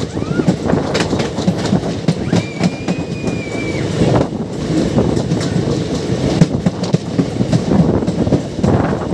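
Coach of the 17644 Circar Express running at speed, heard from the open doorway: a steady rumble with wheels clattering over the rail joints. A faint high squeal is heard briefly about two and a half seconds in.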